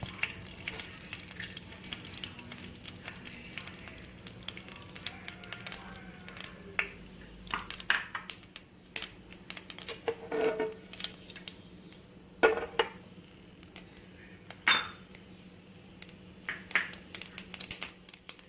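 Mustard seeds frying in hot coconut oil in a pan, sizzling with scattered sharp pops as they splutter. A metal spoon knocks and clinks against the pan a few times.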